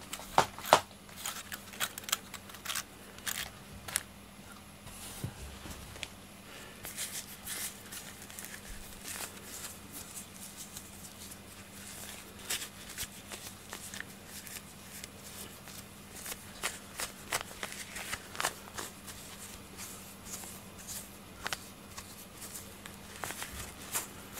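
Light, irregular clicks and rustles of hands handling a wire-pin slicker brush and a rubber grooming glove while pulling shed cat fur off them.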